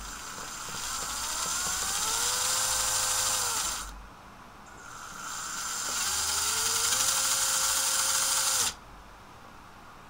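fischertechnik power motors and their gear trains whirring as the Bluetooth joystick drives them, twice: each time the whine rises in pitch as the motor speeds up, holds steady, then stops.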